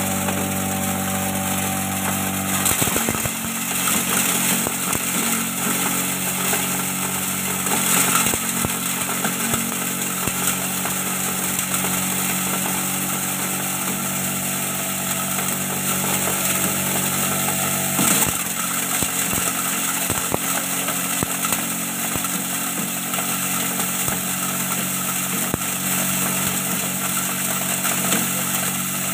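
Mini chopper-grinder machine driven by a Shimizu electric motor, running steadily and grinding corn. About three seconds in, the even motor hum turns rougher, with many small ticks and rattles from the kernels inside the machine.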